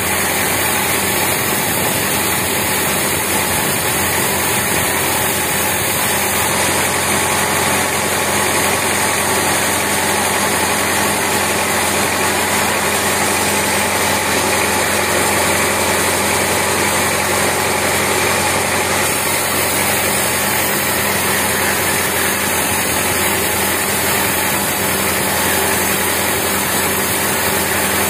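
Band sawmill running steadily as its blade rips lengthwise through a teak beam.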